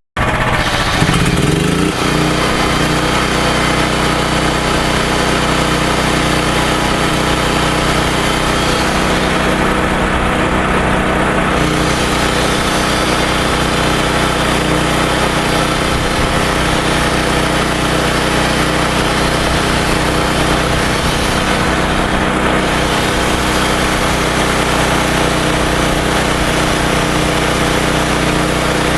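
Makita 5012B electric chainsaw running steadily, its electric motor and chain cutting wood, with a short rise in pitch as it spins up about a second in.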